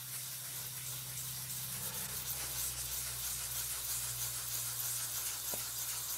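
Sharpening stone rubbed back and forth on 240-grit wet-and-dry abrasive paper over glass, a steady scraping that flattens the stone's face and grinds out its fine scratches.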